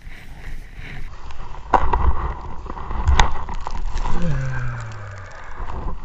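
Snowboard sliding and scraping over snow, with wind rumbling on the microphone and two sharp knocks about two and three seconds in.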